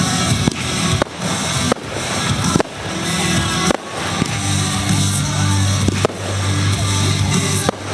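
Fireworks bursting in a string of sharp bangs, about one a second, over music playing.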